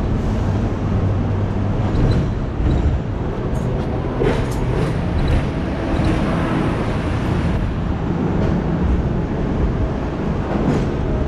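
Hong Kong double-decker electric tram running along its street rails, heard from on board: a steady rumble with a low hum in the first few seconds and a few short clicks about four to five seconds in, over surrounding street traffic.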